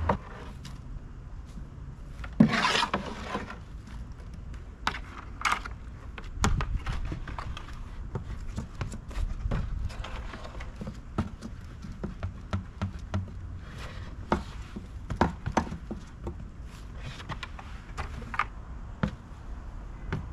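A small plastic bucket knocking and scraping against a plastic wheelbarrow and a plastic storage tote as worm compost is scooped up and tipped back into the worm bin. There is one longer scraping rush about two and a half seconds in, with scattered knocks after it.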